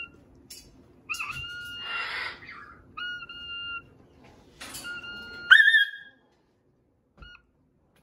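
A small whistle blown in short, steady notes of the same pitch, four times. The last note slides up, wavers and is the loudest. A brief breathy hiss comes between the first notes.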